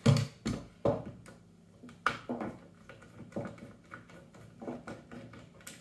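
Irregular light clicks and knocks of a hex-bit screwdriver working a stock bolt out of an airsoft AK rifle, with the rifle's body being handled and shifted.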